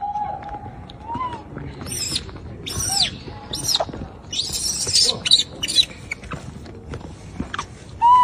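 Baby rhesus macaques giving a string of short, high-pitched coos and squeaks that rise and fall in pitch, with one louder coo near the end.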